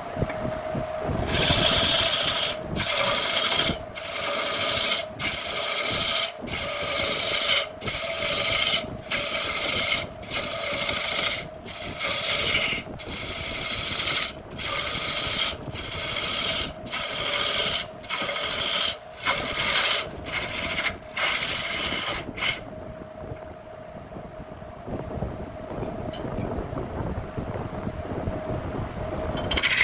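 Wood lathe turning a burl log, with a turning tool or abrasive scraping against the spinning wood in repeated strokes about once a second. Near the end the strokes stop and the lathe runs alone with a steady hum, then the strokes start again.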